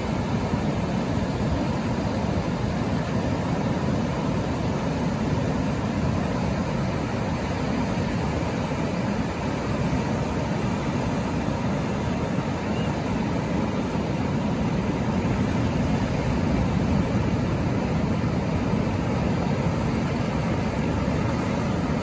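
Ocean surf: waves breaking offshore in a steady low rush, with shallow water washing over the sand around the rocks. It swells a little in the last few seconds as a wash of foam comes in.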